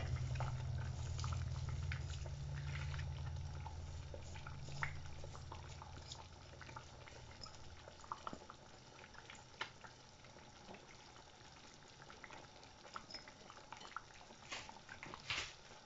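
Washed rice poured from a bowl into a pot of simmering tomato sauce: a soft low rush at first that fades out after about six seconds, with scattered small pops from the sauce bubbling throughout.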